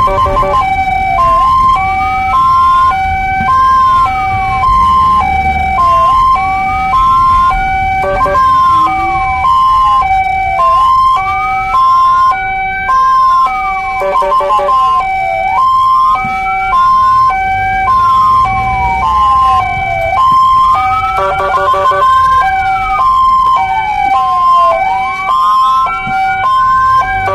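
Ambulance sirens running together: a slow wail that rises for about two and a half seconds and falls for about two, repeating, over a two-tone hi-lo siren switching between its two notes about every half second. Short bursts of a rapid pulsing tone cut in a few times, with road rumble underneath.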